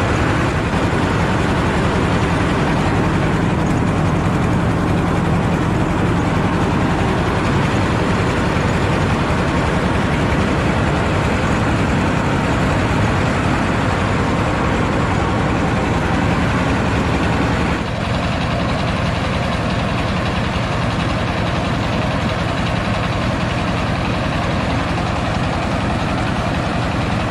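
Diesel engine of a mobile rice milling machine running steadily, with a brief dip in level about two-thirds of the way through.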